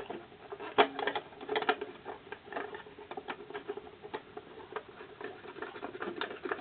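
Irregular small clicks and taps of metal parts being handled as the small cover goes back over the lamp compartment of a Durst M605 enlarger head, a few sharper clicks about a second in.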